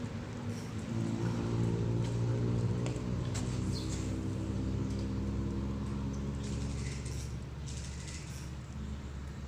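A motor engine running with a steady low hum that comes in about a second in and fades after about seven seconds, with a few light clicks.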